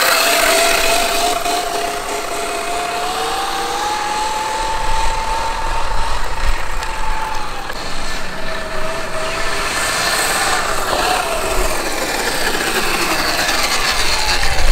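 72-volt Sur-Ron electric dirt bike riding under throttle. Its electric motor gives a high whine that rises in pitch, holds steady for a few seconds, then drops and comes back several times as the throttle is worked.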